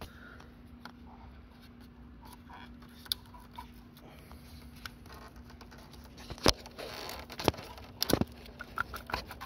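Hands working the plastic wiring connector and its locking lever on an Audi A4's electronic ABS module: light scraping and rattling, with three sharp clicks in the last few seconds as the connector is freed.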